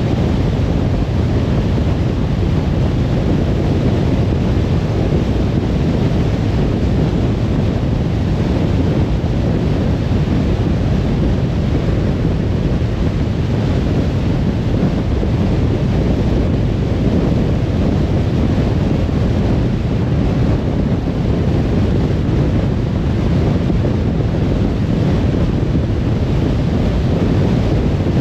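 A car driving at motorway speed: steady, low road noise from the tyres and wind, unbroken throughout.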